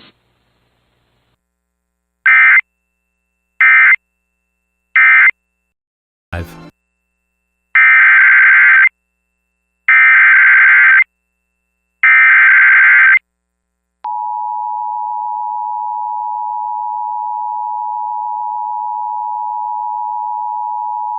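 Emergency Alert System data tones. First come three short end-of-message data bursts, then a click, then three longer warbling SAME header bursts. About 14 seconds in, the steady two-tone EAS attention signal (853 and 960 Hz) starts and holds.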